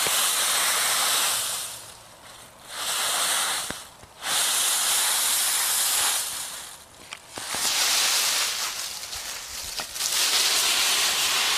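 Dry autumn leaves rustling and crunching as a dog plunges and burrows through a leaf pile. The sound comes in about five surges of a second or two each, with short lulls between.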